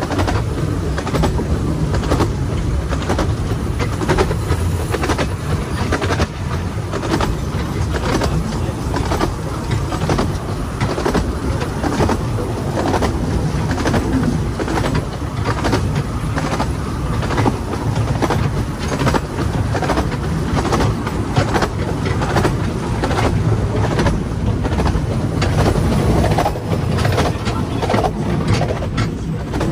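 Narrow-gauge steam-hauled passenger train running along the line: a steady rumble from the carriage with frequent sharp clicks of the wheels over the rail joints.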